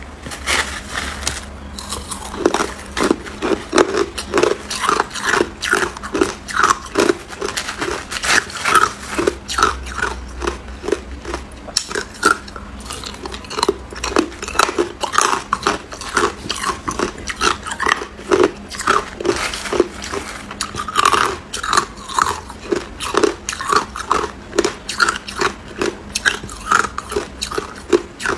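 Hard ice cubes being crunched between the teeth, a continuous run of sharp, closely spaced crunches as mouthful after mouthful is chewed.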